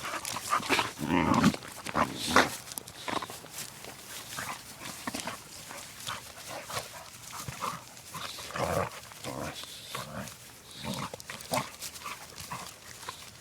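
Two puppies play-fighting: brief growls and yips in irregular bursts over a steady scuffle of paws and bodies, the loudest about a second in, two and a half seconds in, and again near nine seconds.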